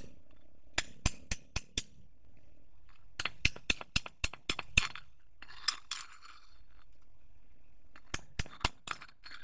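Sharp clicks in three quick runs of four or five, about four a second: one about a second in, one about three seconds in, one near the end.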